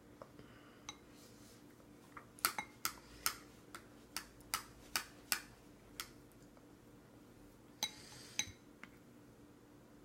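Plastic spoons clicking and tapping against a plastic baby feeding bowl. There is a quick run of about a dozen sharp taps between two and six seconds in, then two more a little later.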